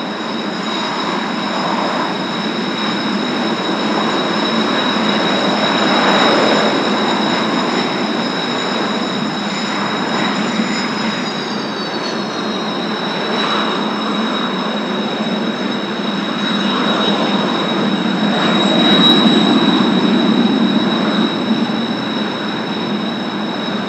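Kawasaki T-4 jet trainers' turbofan engines running on the ground: a steady high whine over a broad roar. One of the whine tones drops in pitch about eleven seconds in, and the roar swells a little around six and nineteen seconds.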